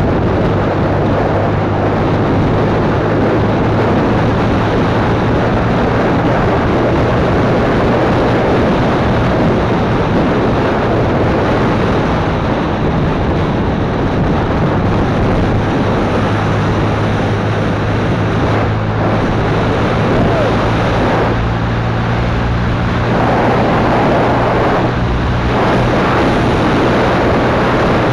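Yamaha FZ150i's single-cylinder engine running steadily at speed, a constant hum under heavy wind rushing over the action-camera microphone.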